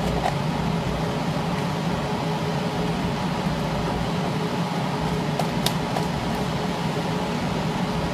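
Continuous electromagnetic induction foil sealing machine running, a steady hum from its cooling fan and conveyor, with a couple of light clicks about five and a half seconds in.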